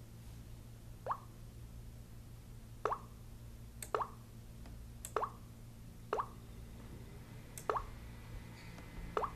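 Samsung smartphone touch sounds: a short water-drop plop with each tap on the screen's buttons, seven times at roughly one-second intervals. A low steady hum runs underneath.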